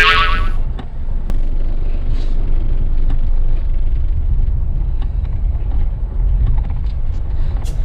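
Steady low rumble of road and engine noise inside a moving car. A brief shrill, high-pitched sound dies away in the first half-second.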